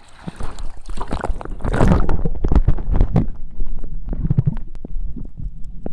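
Seawater sloshing and splashing around a handheld camera at the surface. After about two seconds the sound turns to muffled low rumbling and knocks as the camera goes underwater.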